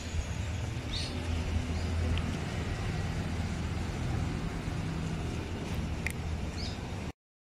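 Steady low rumble of background road traffic, with a few short high chirps scattered through it. The sound cuts out abruptly just before the end.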